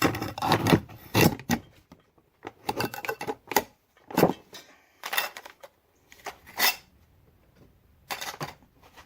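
Irregular metallic clinks and knocks of a metal exhaust connector, pliers and a reciprocating saw being handled and set in position for a cut; the saw itself is not running.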